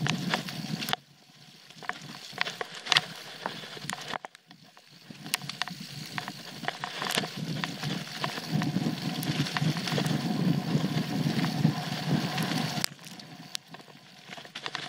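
Trek Full Stache 8 mountain bike ridden over a dirt and leaf-strewn trail: tyres rumbling on the ground, with sharp clacks and rattles from the bike over bumps. The rumble eases off twice in the first five seconds, is heaviest in the second half, then drops near the end.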